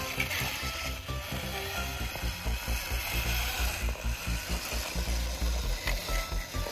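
Background music with short melodic notes and a steady low beat, over a mechanical clicking and rattling.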